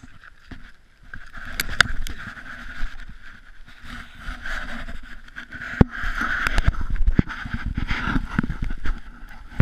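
Handling noise from a handheld camera being moved about: rubbing and scraping on the microphone with a low rumble and many small knocks, starting about a second in.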